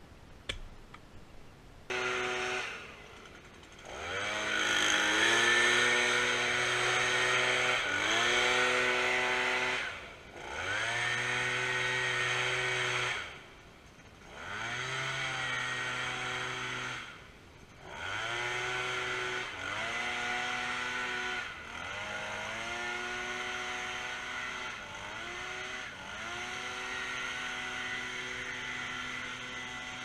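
Two-stroke chainsaw revved in a series of bursts a few seconds long, the pitch climbing, holding and then dropping away at the end of each, settling into a steadier run with small dips in the last third.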